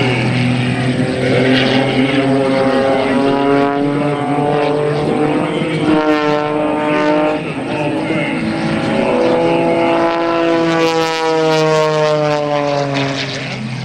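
Extra 300S aerobatic plane's Lycoming six-cylinder engine and propeller running hard. Its pitch climbs over the first few seconds, shifts around the middle, then rises and falls again with the aerobatic manoeuvres.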